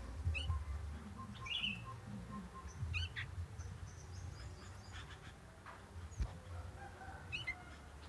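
Sooty-headed bulbul (kutilang) giving a few short, sharp chirps spaced a second or more apart. Under them are a faint, evenly repeated piping note in the first couple of seconds and low rumbling knocks.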